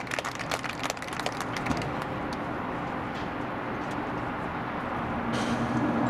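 Scattered applause from the stands dies away over the first two seconds. Then a steady low rumble carries on, and a faint sustained chord from the band swells near the end as its show opens.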